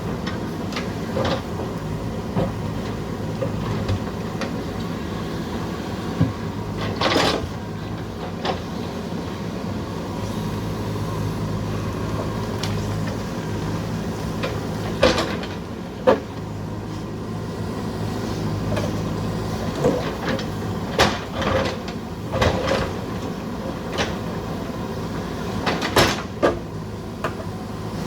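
JCB backhoe loader's diesel engine running steadily while it digs, with a dozen or so sharp clanks and knocks scattered through from the working bucket and arm.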